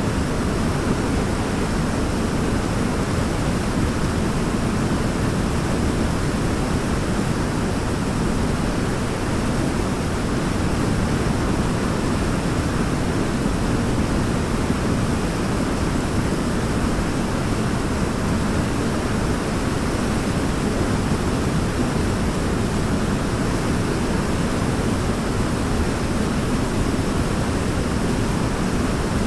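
Waterfall: a steady, even rush of falling water, heaviest in the low range.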